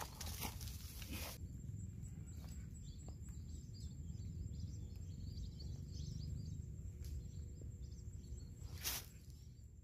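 Outdoor night ambience: about a second of rustling as the crab pot is handled, then a steady low rumble with faint high chirps. One sharp click comes near the end before the sound fades out.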